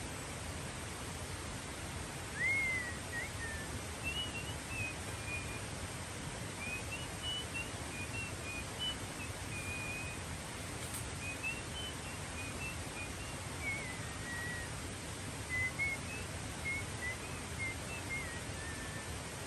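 A bird singing a string of short, whistled phrases again and again, over a steady background hiss.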